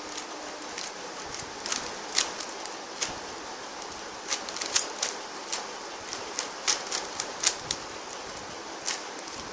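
YJ Linggan stickerless 3x3 speed cube being turned quickly during a solve: irregular clicks and clacks of the plastic layers, a few a second, over a steady hiss.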